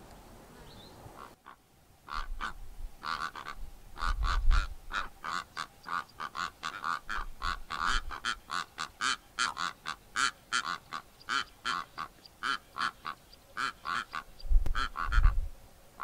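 A pair of Karoo korhaans duetting: a long run of short, rapid calls, about three a second, from about two seconds in. A low rumble comes around four seconds in and again, louder, near the end.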